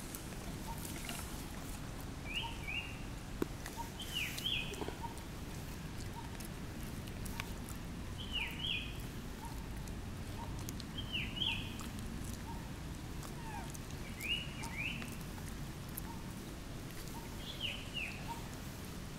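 A bird calling in short paired chirps, repeated every two to three seconds, over steady outdoor background noise, with a fainter regular pip about once a second.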